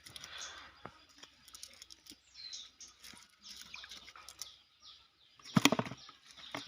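Birds chirping in short high calls, with one brief loud sound about five and a half seconds in.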